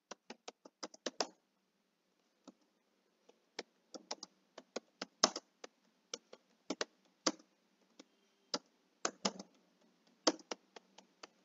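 Typing on a computer keyboard: uneven runs of key clicks with a pause of about two seconds about a second in, and a few keystrokes landing harder than the rest.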